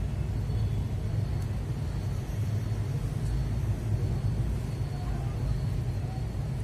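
Steady low background rumble, without clicks or taps.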